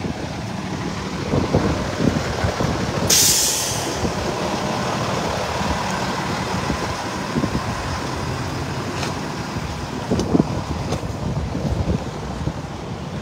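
Wind buffeting the microphone over the steady rumble of a large truck engine running, with a short, sharp air-brake hiss about three seconds in.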